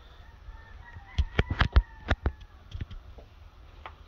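Footsteps on a debris-strewn floor: a quick run of sharp clicks and knocks about a second in, then a few scattered ones. A faint thin high tone sounds behind the first clicks.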